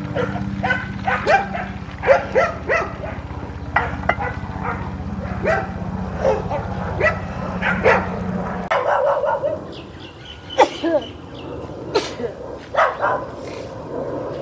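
A dog barking repeatedly in short, separate barks, over a steady low hum that stops about nine seconds in.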